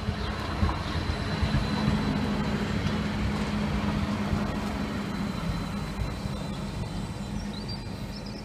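Stadler Variobahn tram passing close by on its rails: a steady hum from the tram with rumble of wheels on track, loudest about two seconds in and easing as it moves away. A thin high whine sounds over the first few seconds.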